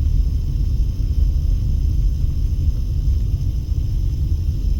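Steady low rumble of a car driving along a town street, road and engine noise heard from inside the cabin.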